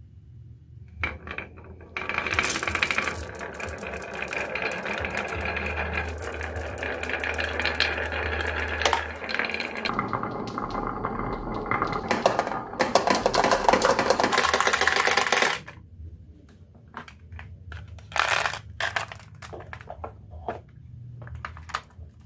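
Marbles rolling and clattering down a marble run: a dense rattle of many small clicks starts about two seconds in and stops abruptly near the middle, followed by scattered single clicks and clacks as the last marbles drop.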